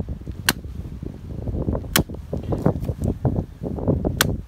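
Camp hatchet splitting short lengths of dry wood into kindling: three sharp chopping strikes a second or two apart.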